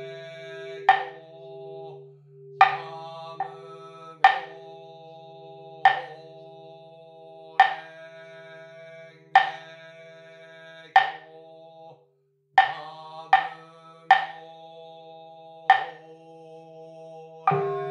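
Slow, evenly spaced strokes on a ringing struck percussion instrument, about one every second and a half to two seconds, with an extra quick stroke or two now and then; each stroke rings on. Under it runs a low, steady, pulsing drone. The sound drops out briefly about twelve seconds in.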